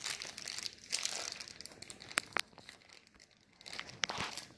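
Thin plastic wrapper crinkling as it is handled and crumpled. A few sharp clicks stand out: two close together a little past two seconds in and another about four seconds in.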